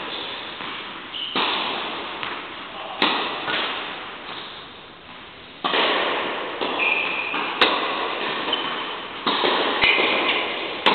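Tennis balls struck by rackets and bouncing on an indoor court, a sharp pock every second or two, each one ringing out in the large hall's echo.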